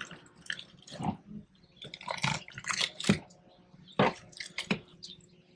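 Wet squelching and squishing of raw fish flesh as hands pull at the gills and throat of a mahi mahi carcass, in short irregular smacks.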